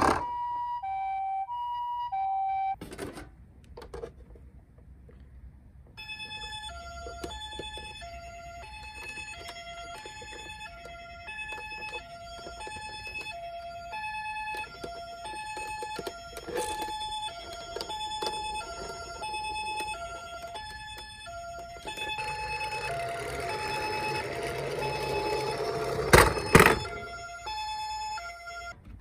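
Toy ambulance minicars' electronic two-tone hi-lo siren in the Japanese ambulance pattern, switching pitch about every half second. One siren sounds for about three seconds; after a few handling clicks, a second, slightly lower-pitched one starts about six seconds in and keeps going. Near the end a rubbing rattle builds over it, with two loud knocks.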